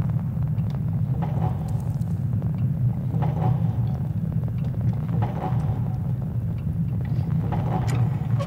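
Steady low rumble of a soundtrack drone, with a higher swelling sound returning about every two seconds and scattered faint clicks.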